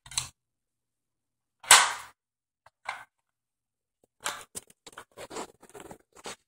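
Hard plastic flaps of a dog's foraging puzzle toy clacking as a greyhound puppy noses and paws them open on a tiled floor. One sharp, loud clack comes about two seconds in, and a run of quicker clicks and rattles follows near the end.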